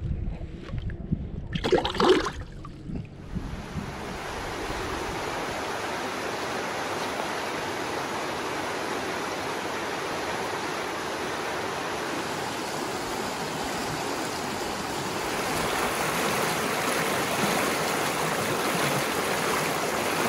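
A short splash of water about two seconds in, then a shallow rocky river running in rapids: a steady rush of water that grows louder over the last few seconds.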